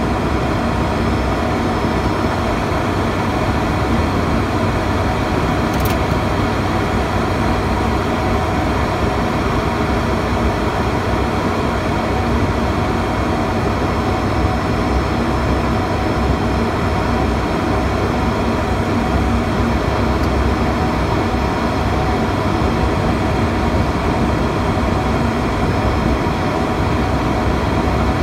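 Steady drone of an ATR 72-600's Pratt & Whitney PW127M turboprop engines and propellers heard from the cockpit on approach, with a constant hum under the noise. There is a single short click about six seconds in.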